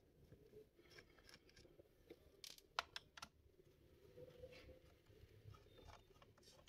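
Faint, scattered small clicks and taps of a screwdriver working the screws out of a laptop's plastic back cover, with a short cluster of sharper clicks a little before the middle.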